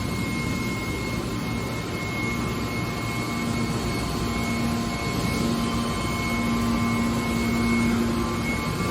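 Aluminium-can baler running: a steady machine noise with a high whine throughout and a low hum that comes up about a third of the way in.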